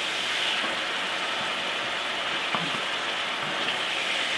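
Ground beef in tomato sauce sizzling steadily in a hot cast-iron skillet, with a few faint scrapes and knocks from the spatula stirring it.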